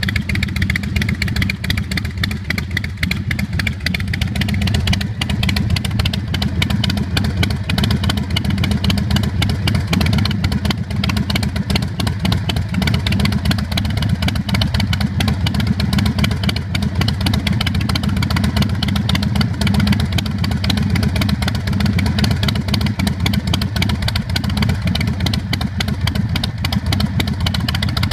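Carbureted 111 cubic inch S&S V-twin of a chopper motorcycle idling steadily through its Vance & Hines exhaust, a deep, even, pulsing run.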